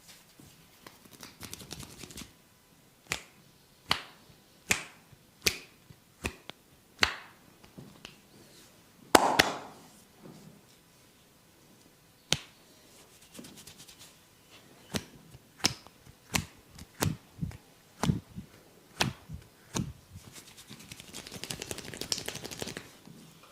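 Head massage: sharp hand smacks and snaps on the head, a little under one a second, with a louder double smack about nine seconds in. Twice there is a stretch of fine, dense crackling of hair being rubbed between the fingers (hair cracking).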